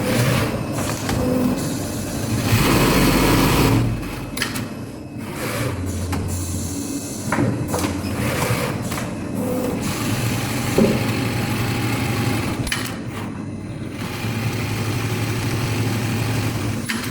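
Automatic pocket welting sewing machine running: its motor hums in stretches that change pitch, with scattered sharp mechanical clicks. A louder rushing noise comes about two to four seconds in.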